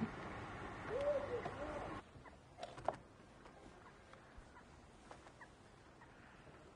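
A low two-note hooting call, like a dove's coo, about a second in. After a sudden cut at about two seconds it drops to quiet ambience with a few sharp clicks and faint short chirps.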